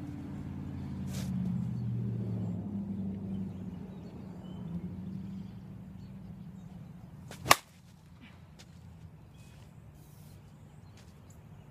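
Avarice G2 softball bat hitting a softball off a batting tee: a single sharp crack about seven and a half seconds in. Before it, a low drone fades out over the first six seconds.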